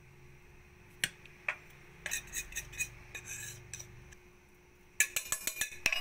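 A metal spoon clinking and scraping against a plate and a stainless steel mixing bowl as sifted flour and cocoa are scraped off into cake batter: two sharp clicks about a second in, a run of scraping and clinks after that, and a quick series of taps near the end.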